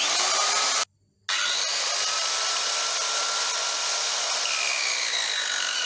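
Ingco CS18538 1400 W corded circular saw running free with no load, a steady motor and blade whine. It drops out for about half a second just under a second in, then runs steadily again.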